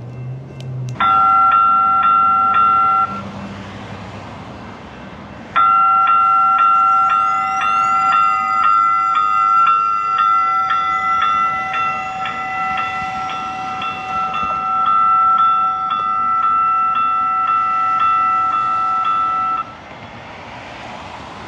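Rail warning bell ringing rapidly, about three strokes a second: a short spell about a second in, then a long spell of about fourteen seconds that cuts off suddenly.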